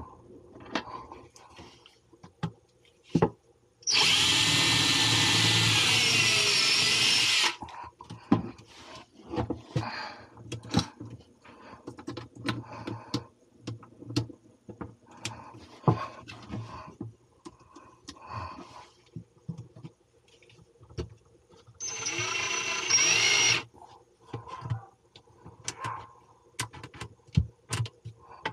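DeWalt cordless drill/driver driving screws into wood. It runs once for about three and a half seconds a few seconds in, and again briefly near the end. Short clicks and knocks of handling fall between the runs.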